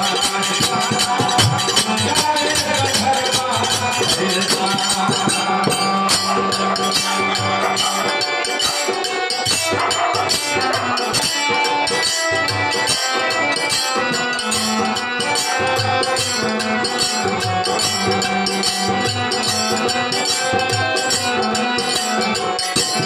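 Bhojpuri devotional folk music: a harmonium holding steady notes over a dholak beat, with a pair of small hand cymbals clashing in a fast, even rhythm.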